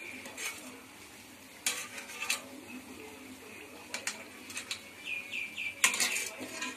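Appams deep-frying in hot oil in a kadai, sizzling, while a wire-mesh skimmer turns them and clinks against the pan several times, loudest about six seconds in.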